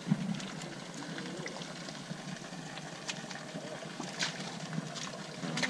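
Muddy water sloshing and splashing as people wade through a mud wallow and scoop mud onto elephants, with a few sharper splashes.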